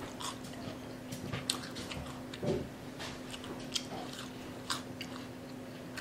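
Biting into and chewing a crispy fried catfish fillet: the breading crackles in short, sharp, irregular crunches.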